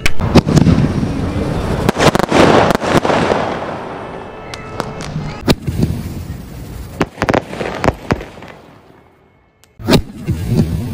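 Vadivel Pyrotech 'World War' crackling multi-shot fireworks cake firing: a run of sharp bangs from shots launching and bursting, with dense crackling between them. It fades almost to silence about nine seconds in, then one more loud bang near the end.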